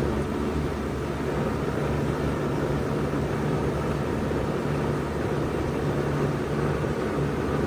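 1992 Bard 2.5-ton wall-hung heat pump running steadily in cooling mode: a low hum under an even rush of air.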